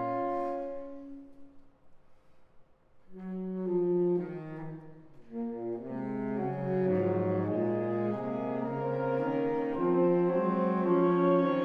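Saxophone quartet playing. A held chord dies away about a second in, followed by a brief near-quiet pause. The four saxophones then come back in with moving lines that build into fuller sustained chords.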